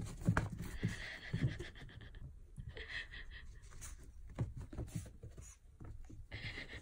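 Pomeranian puppy tussling with a sock on carpet: a scatter of soft thumps and scuffs from its paws and body, with short breathy bursts of panting.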